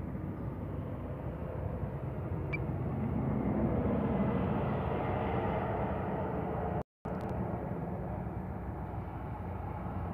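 Steady outdoor rumble and hiss, vehicle-like, that swells for a couple of seconds a few seconds in. The sound cuts out to silence for a moment about seven seconds in.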